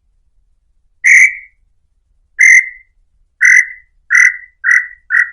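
Tataupa tinamou (inhambu-chintã) singing: a series of whistled notes, six here, that come faster and shorter as they go and fall slightly in pitch.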